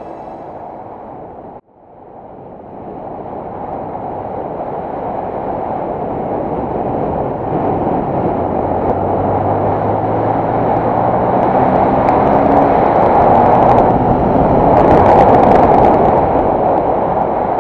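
Wind rushing over the microphone of a riding motorcycle, growing steadily louder as speed builds, with the Yamaha M-Slaz's single-cylinder engine faintly running underneath. Background music cuts off a couple of seconds in.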